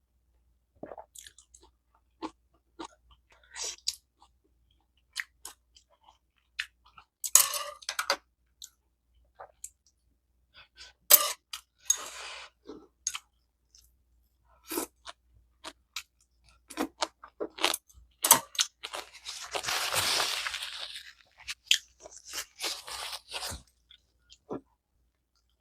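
A person chewing and crunching home-cooked Korean food close to the microphone, with irregular short crisp bites and clicks and a longer, louder stretch of chewing noise near the end.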